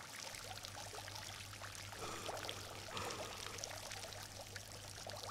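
Faint running water trickling steadily, with many small droplet-like clicks, and a low steady hum that comes in just after the start.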